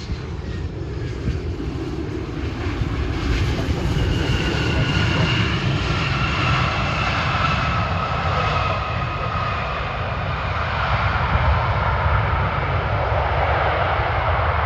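Regional jet on approach passing by, its engine noise building over the first few seconds, with a high whine that slowly falls in pitch as it goes past. Wind rumbles on the microphone underneath.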